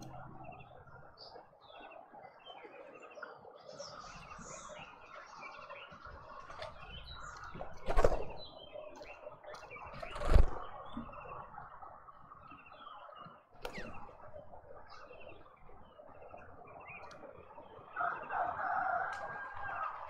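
Garden birds chirping and calling around a feeder, with two loud sharp thumps about eight and ten seconds in and a louder stretch of calling near the end.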